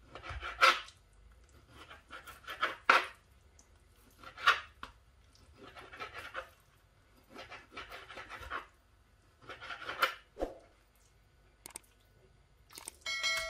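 A knife slicing raw chicken breast on a plastic cutting board, a short scraping stroke every second or two, about seven in all. Near the end a bell-like chime starts and rings on.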